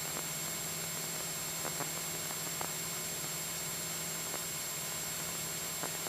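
Steady cabin noise of a Cessna 172SP in cruise flight: an even hiss over a low steady hum from its four-cylinder engine and propeller, with a few faint clicks.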